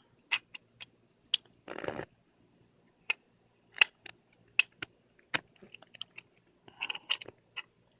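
Irregular sharp clicks and taps of the metal and plastic parts of a steering wheel quick-release hub being handled and fitted together, with a short scraping rub just before two seconds in and a quick run of clicks about seven seconds in.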